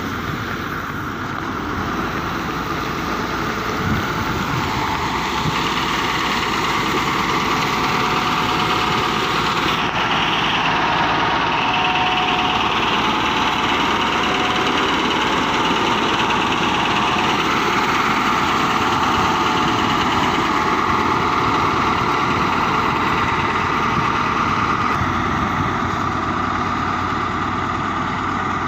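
Diesel engine of a Caterpillar 140H motor grader running steadily as the grader works, its blade spreading gravel.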